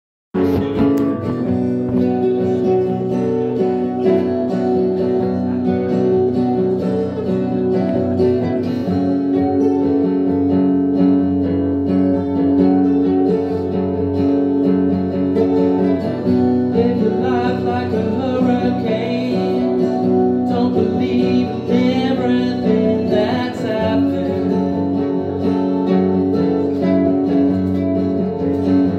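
Live acoustic instrumental: two steel-string acoustic guitars strumming and picking under an amplified harmonica playing held chords. About halfway through, the harmonica turns to wavering, bending runs.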